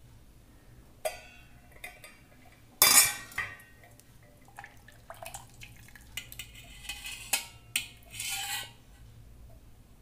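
Stainless-steel lid lifted off a rice pot, then a steel ladle clinking and scraping against the steel pot and a small steel plate while boiled rice is scooped out to check whether it is cooked. The loudest clank comes about three seconds in, with a run of lighter clinks later.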